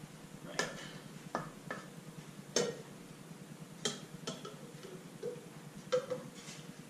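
A red plastic scoop clicking and knocking against an aluminium stockpot and a clear jug while thick chocolate mixture is scooped and poured: about nine light clicks and knocks, irregularly spaced.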